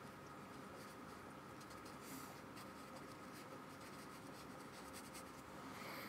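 Faint scratchy strokes of a paintbrush working gouache onto paper.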